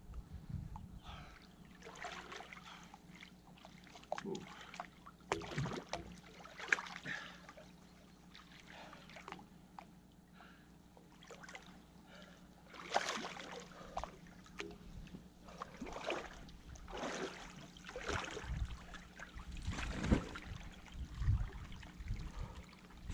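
River water splashing and sloshing irregularly as a person moves through it, with a low rumble underneath.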